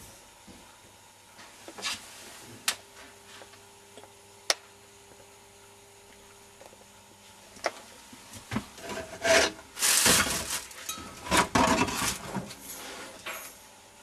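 Handling noise against an old refrigerator: a few sharp clicks, then a run of loud scraping and rubbing noises in the second half.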